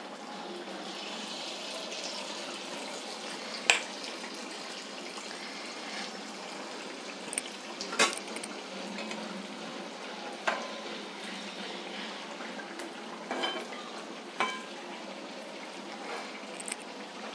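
Banana appam deep-frying in hot oil in a kadai, a steady sizzle throughout. Several sharp metal clinks of a utensil against the pan cut through it, the loudest a few seconds in and about eight seconds in.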